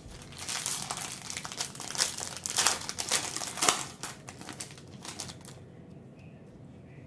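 A 2021-22 Panini Prizm basketball card pack's wrapper crinkling as it is torn open by hand, with dense crackling that stops about five and a half seconds in.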